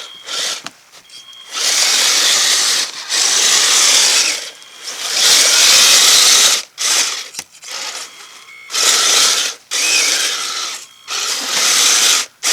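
Kyosho Blizzard RC snowcat driven in a series of on-off bursts of about a second each. Its electric motor and gear drive whir as the tracks and plow blade scrape through snow.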